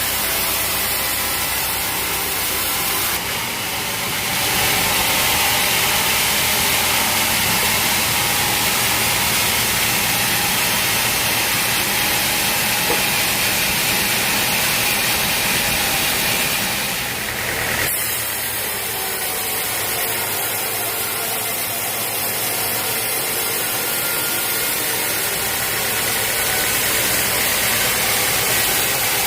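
Sawmill saw and machinery running steadily with a dense, loud hiss of cutting through teak, shifting briefly about 3 and 17 seconds in.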